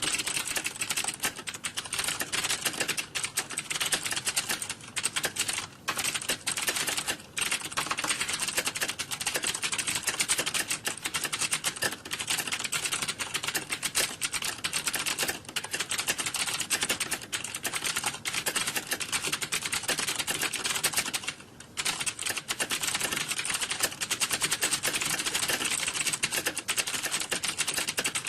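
Computer keyboard typing: a dense, fast clatter of keystrokes with hardly a break, and a short pause about 21 seconds in.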